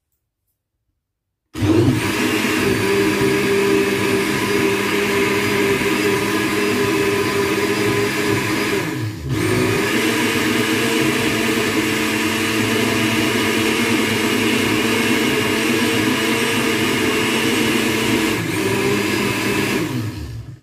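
Electric countertop blender running at speed, its motor and blades churning a jar of fruit and juice into a purée. It starts about a second and a half in, dips briefly about halfway, and cuts off sharply at the end.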